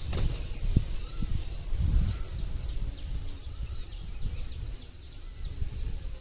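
Steady high chirring of insects, with low rubbing and a few sharp knocks in the first second or so as the old V-belt is worked off the engine's pulleys.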